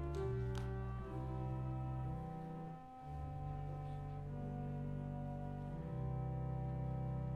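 Slow music of held organ chords, the notes changing every second or two, with a faint click about half a second in.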